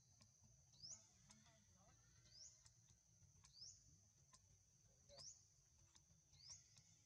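Faint forest ambience: a steady high-pitched insect drone, with five short rising chirps repeating about once every second and a half.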